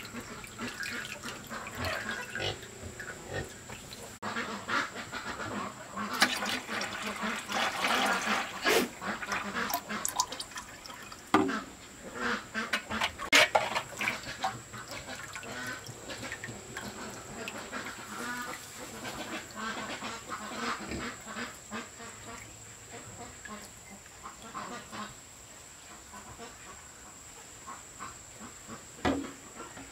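Ducks quacking on and off, mixed with a plastic scoop dipping and knocking in a metal wok of rendered pork-fat oil and the oil being poured.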